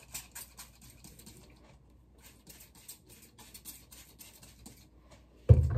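Plastic trigger spray bottle misting water in a quick run of short squirts, several a second, each a brief hiss. A loud dull thump near the end.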